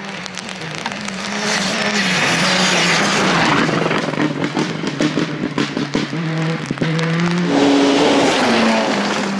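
Rally car engines at full throttle on a gravel stage, the engine note stepping up and down through gear changes. A dense hiss of flung gravel swells about two seconds in, and a run of sharp cracks comes through the middle.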